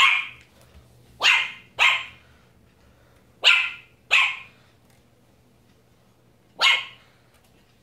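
Pomeranian puppy barking: six short, high-pitched barks, some coming in quick pairs, with gaps of a second or two between them.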